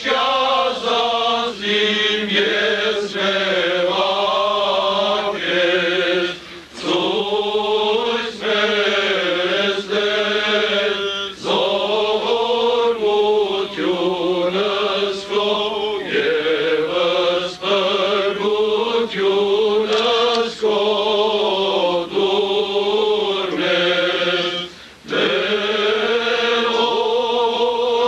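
Armenian liturgical chant sung by men's voices, a slow, continuous melody that pauses briefly twice for breath.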